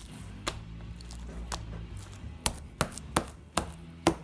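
Slime popping and clicking as it is stretched and pressed in the hands: about seven sharp pops, a couple early on, then quicker ones in the second half.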